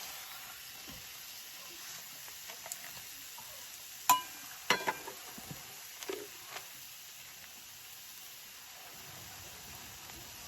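Beef sizzling steadily as it cooks over the heat, with a few sharp metallic clinks about four seconds in and a couple more around six seconds.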